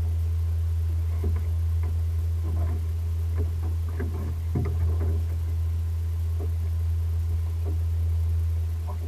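A steady low hum, with faint scattered knocks and muffled sounds over it, mostly in the first half.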